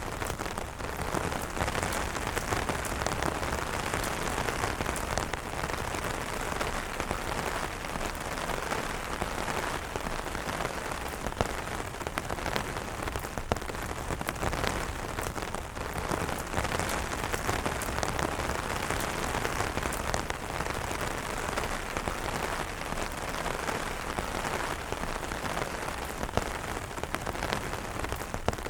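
Steady rain falling on umbrellas: a dense, even hiss with many individual drops tapping sharply on the fabric.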